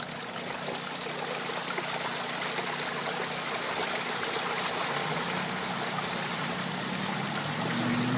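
Backed-up sewage water gushing from a just-cleared sewer pipe into a flooded trench, a steady rushing flow that slowly grows louder as the clog lets go. An engine hum comes up near the end.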